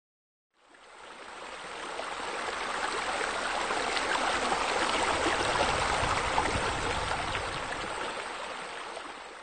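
Sound effect of water running down a wall water feature, a steady rushing splash that swells up over the first few seconds and fades away near the end.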